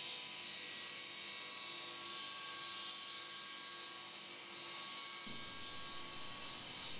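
Table saw running at speed with a steady whine and hiss while its blade trims the end off a glued-up block of wood.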